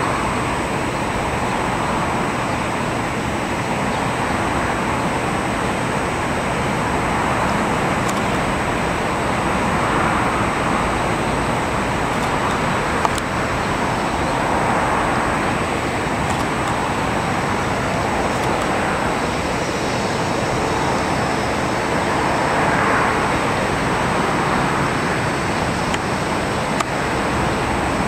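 Airbus A380's four turbofan engines heard from the ground as the airliner flies overhead: a steady jet roar that swells and eases slowly.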